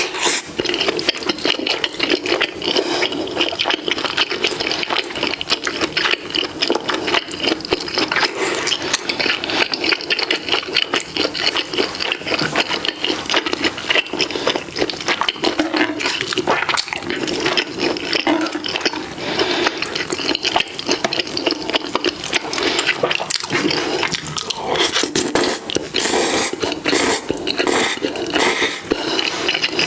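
Close-miked mukbang eating sounds: continuous wet chewing, smacking and slurping of food, a dense run of rapid small clicks and squelches without pause.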